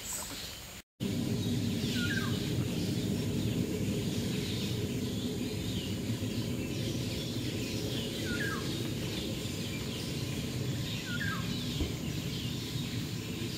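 Forest bird calls: a short down-slurred note repeated every few seconds over many faint high chirps, with a steady low rumble underneath. The sound breaks off briefly about a second in, at a cut.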